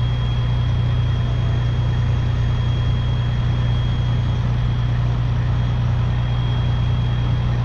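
A vehicle engine idling steadily, a constant low hum, with a thin steady high-pitched tone above it.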